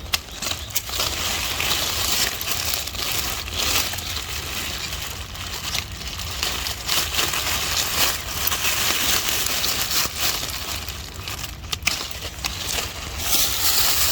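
Steady rustling and crackling of dry plant material being handled, with many sharp snaps scattered throughout.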